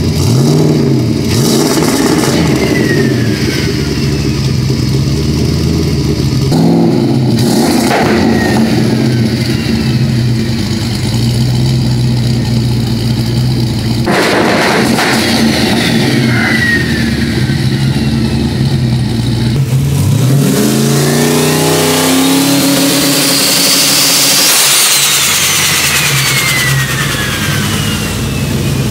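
Freshly built 408 cubic-inch stroker V8 with a bed-mounted 88 mm turbocharger, in a Chevrolet Colorado, idling and being revved several times. The revs sweep up and fall back, and a high turbo whistle rises and falls away with them.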